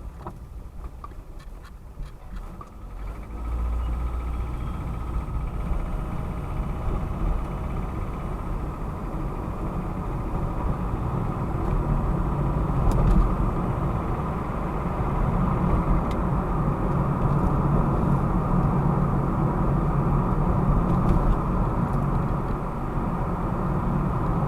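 Mitsubishi Lancer X's 1.8 4B10 inline-four running cold with the knock that the owner says is there only until the engine warms up. It gets louder about three and a half seconds in and then runs steadily.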